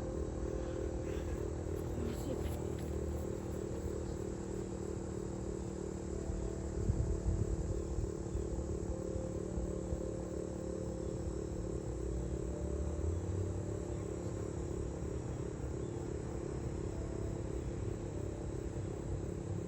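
Federal Signal STH-10 siren sounding a steady tone, several held notes with a fast, even wobble. A brief low rumble comes about seven seconds in.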